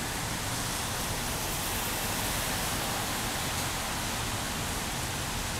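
Steady, even hiss of rain and wet street noise, with no distinct events standing out.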